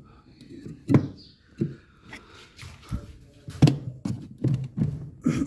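A series of irregular knocks and thunks, roughly two or three a second, the loudest about a second in and again near the end.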